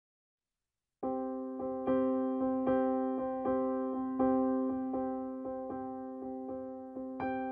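Instrumental background music of evenly paced pitched notes, starting suddenly about a second in after silence.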